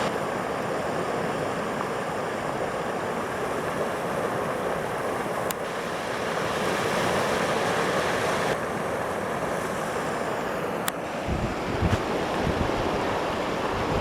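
Stormwater runoff rushing steadily out of the end of a French drain at a storm drain outlet. From about eleven seconds in, wind buffets the microphone in low gusts.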